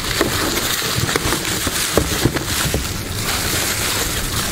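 Plastic bubble wrap crinkling and rustling as hands pull an item out of it, with many small crackles.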